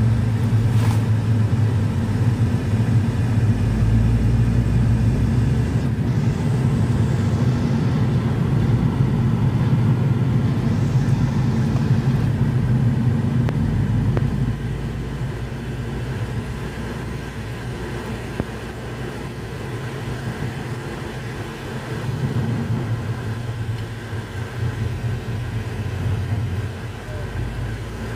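Road and engine noise inside a moving car's cabin: a steady low drone that eases off about halfway through.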